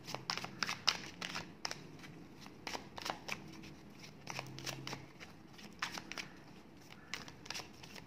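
A tarot deck being shuffled by hand: an irregular run of light card snaps and slides as the cards are pushed from hand to hand.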